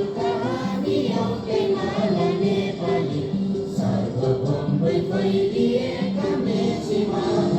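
A group of children singing together in chorus to music, a continuous sung melody with held notes.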